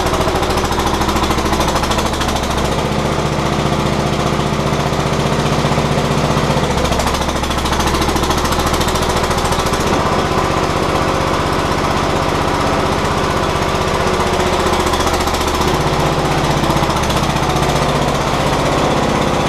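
Terramite backhoe's engine running steadily, its note shifting about three seconds in, settling back around seven seconds, and shifting again near the end.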